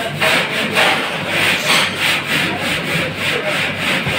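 Block of white cheese rasped on a hand grater: rhythmic scraping strokes, about three a second.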